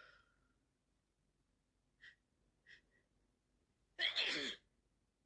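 A woman with a heavy head cold taking two short, sharp breaths, then sneezing once, loudly, about four seconds in.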